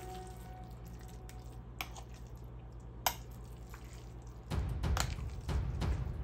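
A metal spoon clinks sharply twice against a glass baking dish of casserole mixture, then from about four and a half seconds in come the irregular wet sounds of the thick chicken, broccoli and rice mixture being pressed down into the dish by hand.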